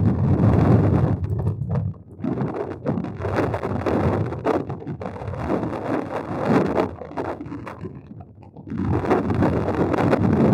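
Wind buffeting the microphone in uneven gusts, a loud low rumble that eases off briefly near the end and then comes back.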